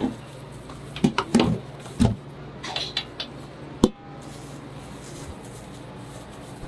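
Clatter and knocks of a metal rice-cooker pot and tray as cooked rice is scooped out by hand, ending with one sharp knock just before four seconds in, over a steady low hum.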